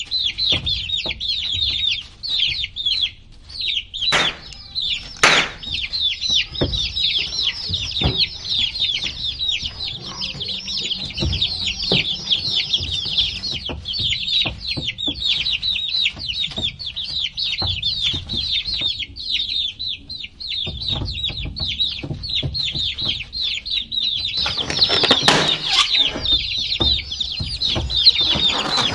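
A crowd of baby chicks peeping nonstop, a dense chorus of high, short chirps. A few sharp knocks come early on, and a louder rustling burst comes near the end.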